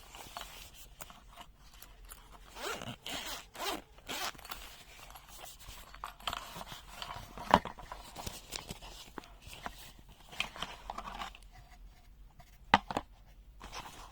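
Zipper on a soft carrying pouch being pulled open in a few short strokes, with handling rustles and a few sharp clicks as things are taken out.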